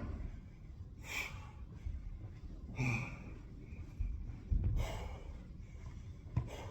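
A person breathing hard during medicine-ball exercise: three sharp, forceful exhales about two seconds apart, with a few dull thuds in between.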